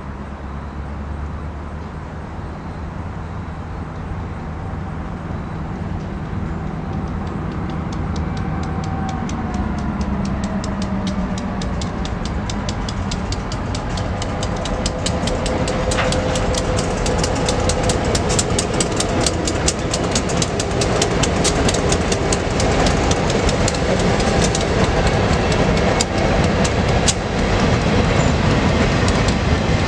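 Freight train passing: a diesel locomotive's engine is heard approaching, then the wheels clatter rhythmically over the rail joints from about halfway in, growing steadily louder toward the end.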